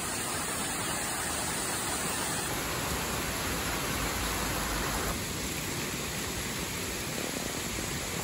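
Heavy rain pouring steadily on foliage and paved ground: a dense, even hiss of downpour.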